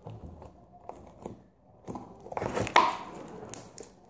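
Homemade slime squeezed and kneaded by hand, giving off small wet pops and crackling clicks, the crackling all slime makes, a little denser past the middle.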